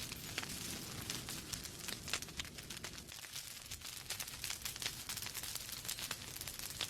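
Wood fire in a fireplace crackling, with frequent sharp pops and snaps from the burning logs over a soft steady rush of flame.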